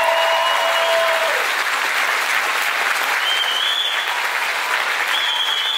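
Audience applauding, with a few held, high-pitched calls standing out over the clapping.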